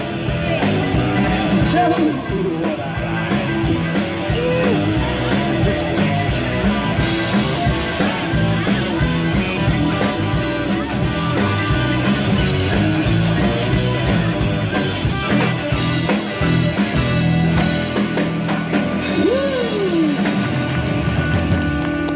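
Live rock band playing a song: guitar and drum kit with a singer's voice, at a loud, steady level.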